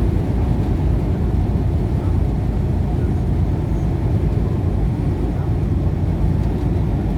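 Steady low rumble of engine and road noise inside a moving vehicle, with no change or distinct events.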